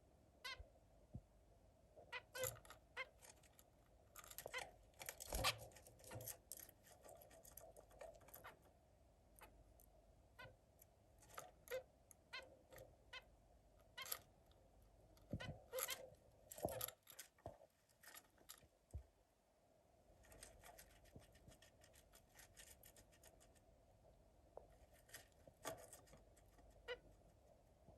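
Zebra finch calling: short calls at irregular intervals, busiest around five seconds in and again around fifteen to seventeen seconds in.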